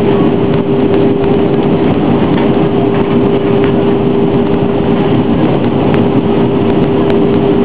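Steady cabin noise of an easyJet Airbus A320-family airliner in flight: the loud, even rush of engines and airflow with a steady hum held throughout.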